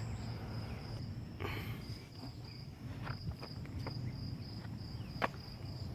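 Crickets chirping steadily in a high, pulsing trill, with a few sharp light clicks and rustles over it, the loudest about five seconds in.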